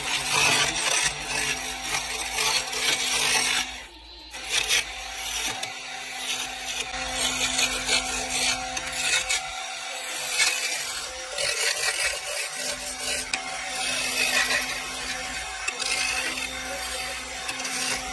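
A small motor-driven wood lathe runs with a steady hum while a hand-held turning chisel cuts into the spinning wooden spindle, giving a continuous rough scraping of wood. The cutting breaks off briefly about four seconds in, then resumes.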